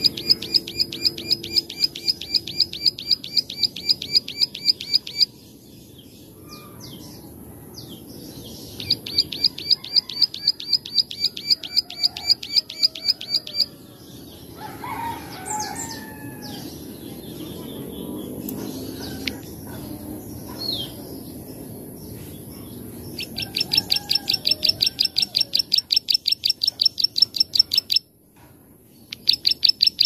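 Plain prinia (ciblek sawah) giving its rapid 'klik-klik' song: long runs of fast, evenly repeated high clicking notes. Three runs are separated by pauses filled with faint scattered chirps, and a fourth begins near the end.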